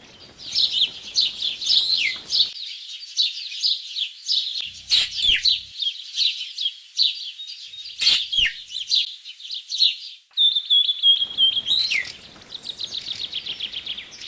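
Javan green magpie calls: a quick run of high chirps and whistled notes with several sharply falling calls. Near the end comes a steady whistled note, a falling call, then a fast trill of repeated notes.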